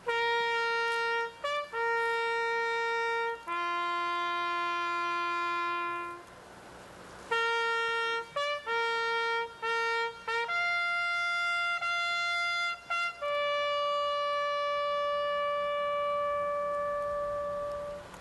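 A lone trumpet plays a slow call of long held notes with short breaks between them, ending on one long held note. It sounds like a funeral bugle salute.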